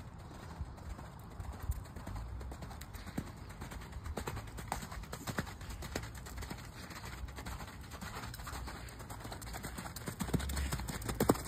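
Hoofbeats of a ridden horse on sand arena footing, a scatter of soft irregular knocks over a low rumble.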